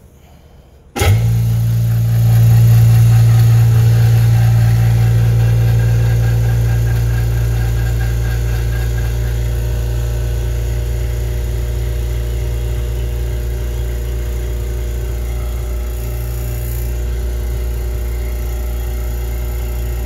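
Electric vacuum pump switched on about a second in, then running steadily with a low hum as it pulls a vacuum on a tank holding a cup of diesel fuel. Its level eases off slowly as it runs.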